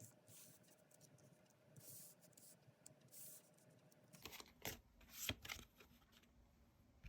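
Tarot cards being handled: soft swishes of cards sliding, then a cluster of sharp clicks and taps about four to five and a half seconds in.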